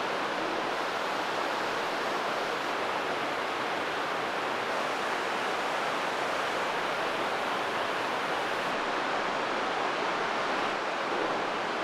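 Steady rush of fast-flowing water.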